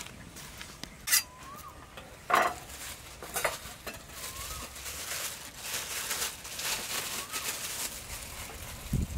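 Thin plastic food-prep glove crinkling and rustling as it is pulled on and handled, after two sharp knocks about one and two seconds in.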